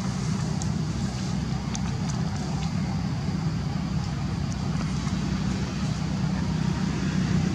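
A steady low motor hum, with a few faint scattered ticks over it.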